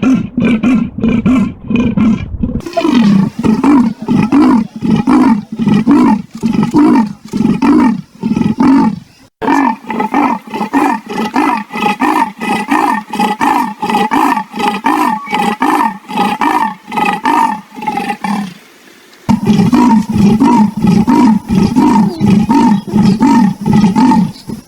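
Leopard calling in long runs of short, rapidly repeated grunting calls, in several recordings spliced together with abrupt cuts between them.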